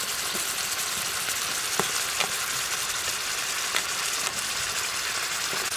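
Beef slices sizzling on a hot round griddle pan: a steady, high hiss of frying meat, with a few scattered pops and crackles.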